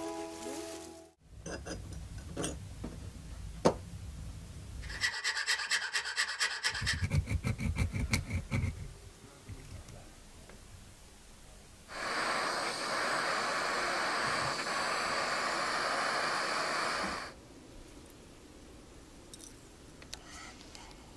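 Copper lure blank being worked by hand: quick runs of rubbing and filing strokes, then a loud steady hiss lasting about five seconds past the middle.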